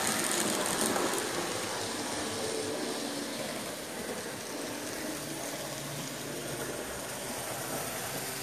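N-gauge model trains running around the layout, a steady mechanical running noise of small motors and wheels on track.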